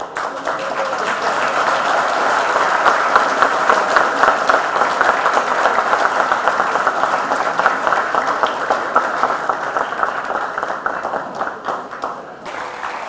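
Audience applauding, the clapping building over the first couple of seconds and dying away near the end.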